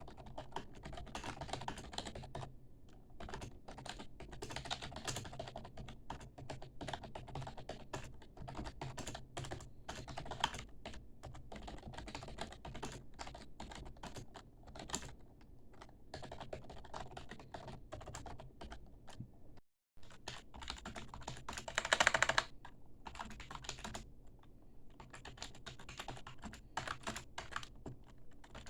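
Continuous fast typing on membrane computer keyboards: soft, irregular key clatter on a Logitech membrane keyboard, then, after a brief cut to silence, on a Microsoft membrane keyboard. About two seconds after the switch comes a short, louder burst of clatter.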